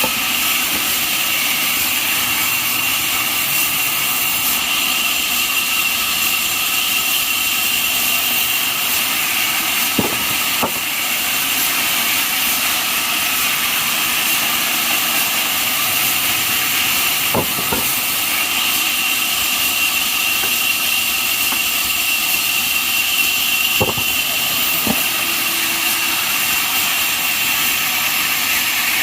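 Band sawmill running steadily with a loud, even high-pitched whine and hiss, cutting jackfruit wood. Three short double knocks stand out, spaced about seven seconds apart.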